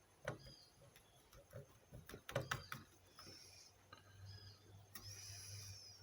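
Faint scattered clicks and taps from small handling at a circuit-board workbench, with a few faint high chirps. A low steady hum comes in about four seconds in.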